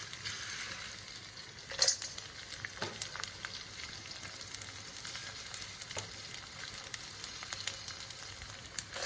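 Edible gum (gond) frying in hot ghee in a pan, a steady sizzle with small crackles as the pieces begin to puff up. A few knocks of the spoon against the pan as it is stirred, the loudest about two seconds in.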